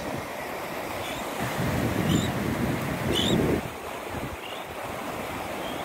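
Beach surf and wind buffeting the microphone, with two louder rushes around two and three seconds in. A bird chirps faintly, short high notes about once a second.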